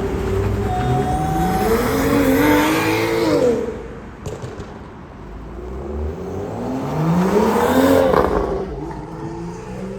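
Car engine accelerating twice, its pitch climbing and then falling away, with a lull in between.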